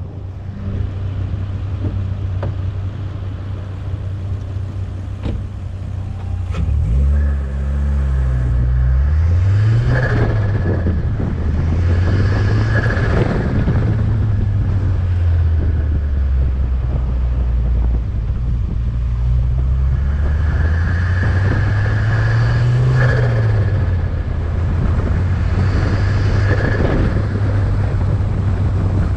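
Volvo S40 T5's turbocharged engine running and being revved several times, each rev followed by a short rushing burst as the throttle is released: turbo flutter and air venting through a Turbosmart dual-port blow-off/bypass valve, with the intake sound loud through a K&N open intake.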